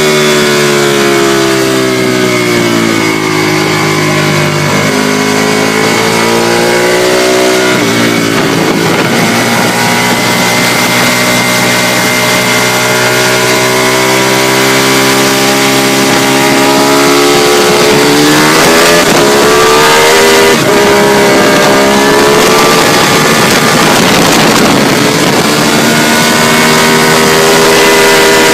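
Ducati 748R's L-twin engine on a fast track lap, heard onboard. Its pitch falls as the bike slows into corners and climbs again under hard acceleration, over constant wind rush.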